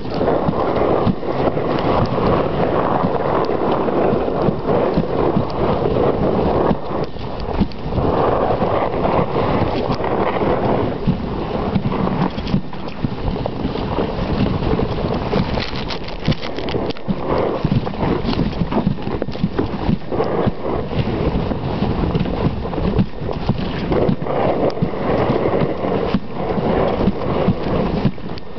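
Dog sled pulled by a team of dogs over a snowy trail: a continuous rushing scrape of the runners over snow, broken by many small knocks and rattles from the sled.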